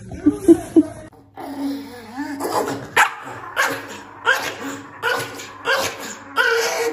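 A dog barking: a few quick barks in the first second, then after a short break a steady run of barks, about three every two seconds.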